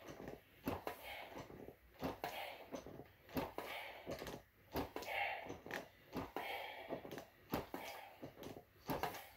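Rowing strokes on a handle-operated home rowing exercise device: a knock or click about twice a second as the handles are pulled and returned, with hard panting breaths between the strokes.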